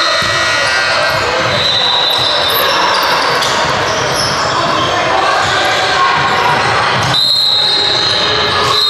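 A basketball being dribbled on a hardwood gym court during a game, with high sneaker squeaks about two seconds in and again for about a second near the end, and players' voices in the big hall.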